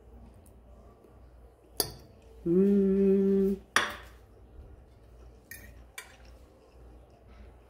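A metal fork clinking against a ceramic plate a few times, with a hummed "mmm" of someone tasting food, held about a second, a little before the middle. The hum is the loudest sound.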